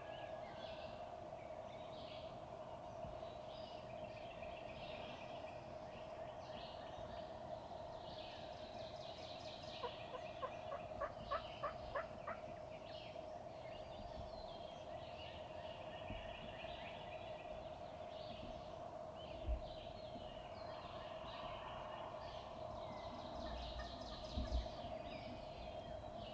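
A wild turkey gobbler gobbles once about ten seconds in, a rattling run of notes lasting about two seconds, over songbirds singing and a steady drone. A couple of low thumps come later.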